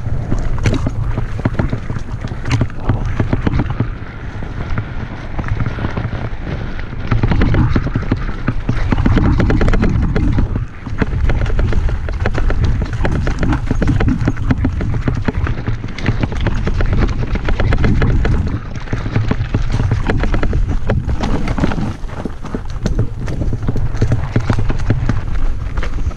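Mountain bike riding over a rough, loose trail: a constant clatter of the tyres, frame and drivetrain knocking over stones and roots, under a heavy rumble of wind buffeting the helmet camera.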